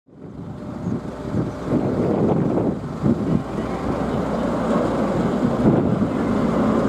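Wind buffeting the microphone over the steady rumble of a car ferry under way, fading in at the start.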